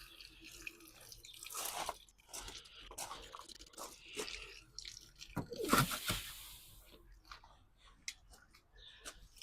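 Irregular clicks, scrapes and crunching rustles of materials being handled, with a louder scraping noise about six seconds in.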